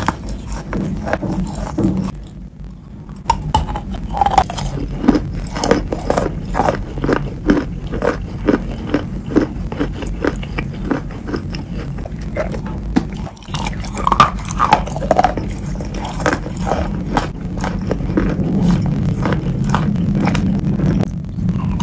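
Biting and chewing wet chalk in clay paste: a quick, continuous run of crisp crunches, with a short pause about two seconds in.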